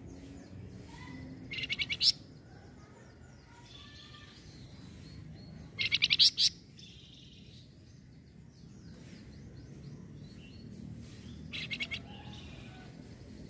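Flamboyan songbird calling in three short bursts of rapid, repeated high notes, about two, six and twelve seconds in, the middle burst loudest. Fainter chirps come between the bursts.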